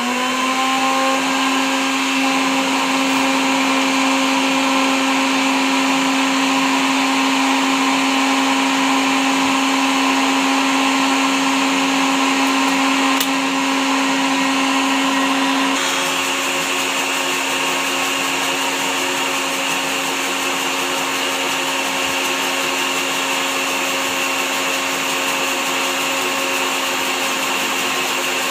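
Sayona countertop juicer-blender motor running steadily, blending egg, salt and lemon juice for homemade mayonnaise. The hum drops slightly in level and shifts in tone about sixteen seconds in.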